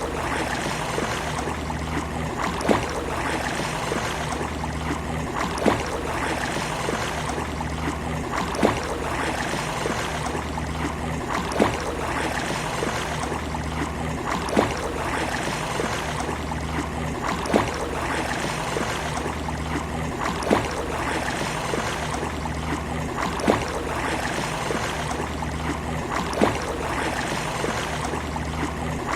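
Seaside water ambience: a steady wash of lapping water with a short sharp splash about every three seconds. The same pattern repeats at exactly even spacing, so it is a short loop.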